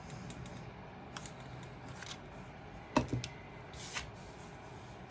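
Cardstock pieces being handled and pressed together, with light paper rustles and small clicks, and one sharper knock about three seconds in.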